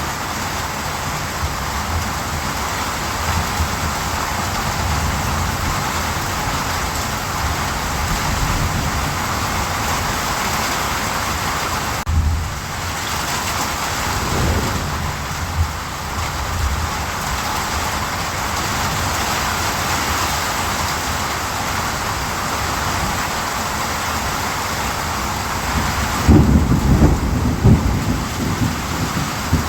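Steady rainfall hissing evenly, with a low rumble of thunder near the end.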